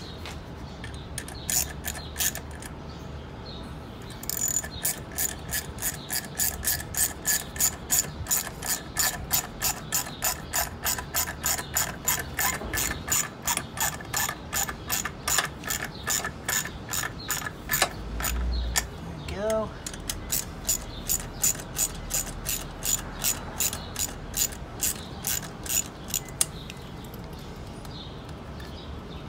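Ratchet tool clicking in steady strokes, about two to three clicks a second, as a hose clamp is tightened on an intake pipe. A few scattered clicks come first, and the clicking stops a few seconds before the end.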